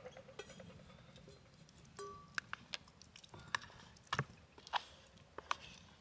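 Scattered light clicks and knocks of small hard objects, with a brief clink about two seconds in.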